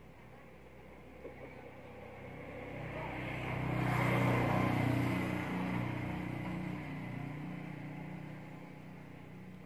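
A motor vehicle passes by, its engine sound swelling to a peak about four seconds in and then fading away.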